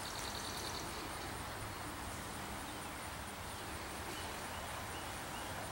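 Quiet woodland ambience: a steady low background hiss with a few faint, short, high chirps.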